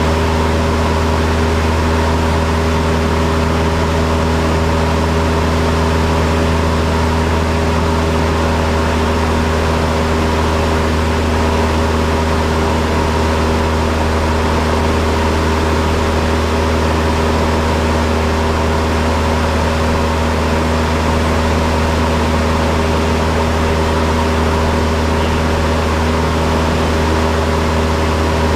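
Cessna 172's piston engine and propeller running at a steady power setting, heard inside the cabin as a loud, even drone with a deep hum beneath it.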